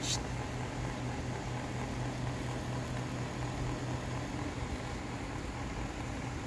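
Steady low machine hum under an even hiss, like a running room appliance, with a brief high hiss right at the start.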